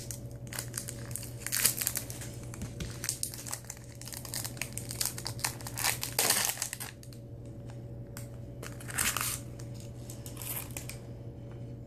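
Crinkling plastic lollipop wrapper being unwrapped by hand: a run of crackles, with louder crumples about a second and a half in, around six seconds and around nine seconds.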